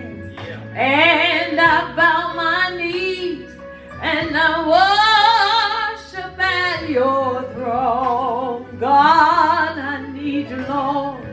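A woman singing solo into a microphone in long phrases, her voice wavering with a wide vibrato.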